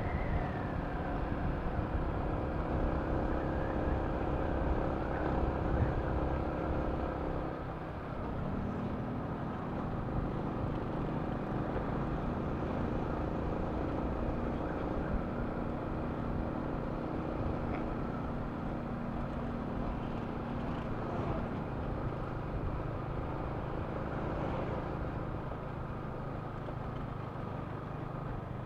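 Yamaha Sniper 155 VVA's single-cylinder engine running while the motorcycle is ridden, with steady road and wind noise. About eight seconds in, the engine note drops to a lower, steadier pitch.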